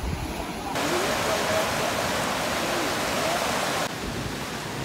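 Loud, even rushing-water noise that cuts in abruptly a little under a second in and stops abruptly near four seconds, with faint voices beneath.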